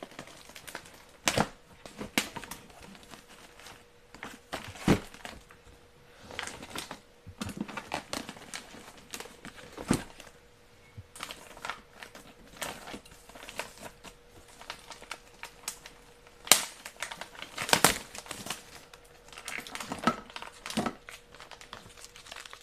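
Clear plastic wrapping crinkling and rustling as wrapped food pouches and cans are handled in a plastic crate, with irregular sharp clicks and taps, the loudest a little past the middle. A faint steady hum sits underneath.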